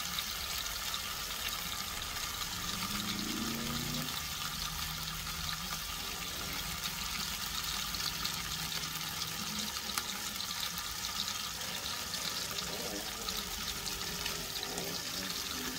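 Pork spare ribs sizzling as they sear: a steady hiss flecked with fine crackles.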